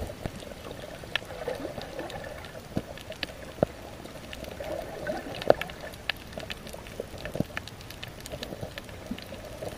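Underwater ambience: a steady watery rush with many scattered sharp clicks and crackles.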